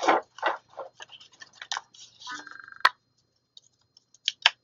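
Paper pages and cards of a ring-bound planner being handled and turned: a string of short rustles and light clicks, with one sharper click a little past the middle.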